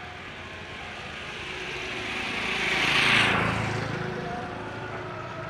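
A motor vehicle passing close by: its engine and tyre noise build up, peak about three seconds in, then fade away as the pitch drops.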